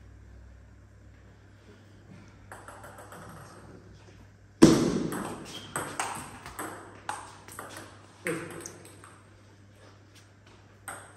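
Table tennis rally: the plastic ball clicking back and forth off the bats and the table, a quick run of sharp clicks that starts about halfway in with a loud first hit, goes on for about five seconds and echoes in the hall.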